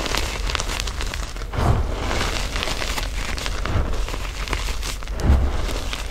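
Hands crushing and squeezing crumbled reformed gym chalk into powder: dry crunching and crumbling with fine crackles, and three soft dull thuds as the hands press down into the chalk.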